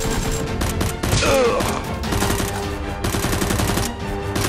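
Rapid bursts of dubbed-in gunfire sound effects for a Nerf blaster firefight, over a background music track, with a brief sweeping sound about a second in.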